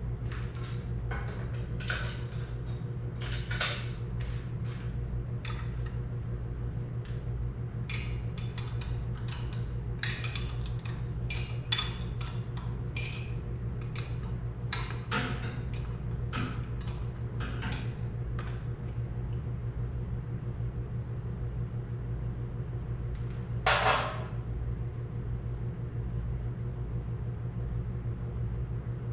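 Hand tools and metal parts clicking and clinking in irregular taps as work goes on at a Farmall Super C tractor engine, with one louder, longer clatter near the end. Under it runs the steady hum of a shop fan.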